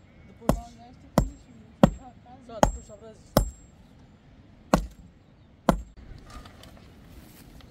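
A metal digging bar pounding soil and stones around the base of a forked wooden post, tamping it firm in its hole: seven sharp strikes in about six seconds, several with a brief high metallic ring.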